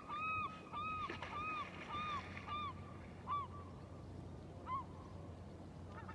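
A bird calling in a series of short, arched calls, about two a second at first, then thinning out to single calls after about three seconds.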